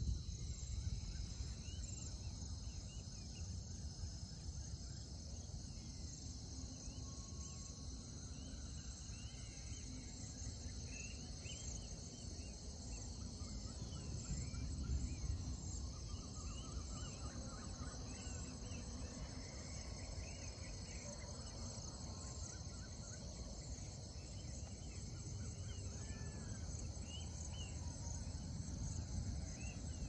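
Evening chorus of crickets and other insects: a steady, high, continuous trilling. Scattered short bird chirps sound over it, with a low rumble underneath.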